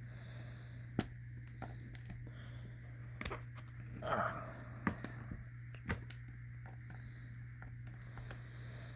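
Scattered sharp clicks and knocks of the plastic and rubber parts of an Israeli 4A1 gas mask being handled and taken apart, with a brief rustle about four seconds in, over a steady low hum.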